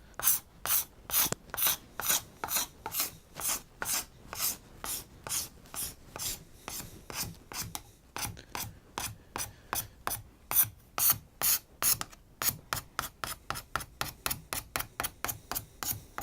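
Sandpaper rubbed by hand over a wooden crosscut saw handle in quick back-and-forth strokes, about two to three a second, quickening in the last few seconds.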